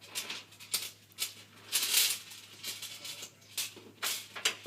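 Metal parts of a knock-down patio table base (legs, bolts and center ring) rattling and scraping in a string of short bursts, about eight of them, as they are handled and fitted together.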